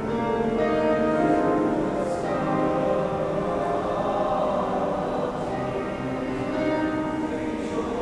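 A choir of teenage boys singing together, mostly long held notes with a few soft 's' sounds from the words.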